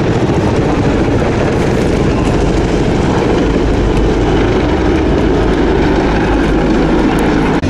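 Three CH-53E Super Stallion heavy-lift helicopters flying past in formation, their rotors beating with a loud, steady, rapid chop.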